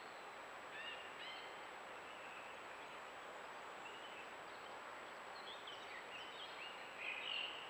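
Songbirds singing in the distance: scattered short whistled phrases, coming thicker and louder near the end, over a steady hiss and a thin constant high whine from the camera trap's recording.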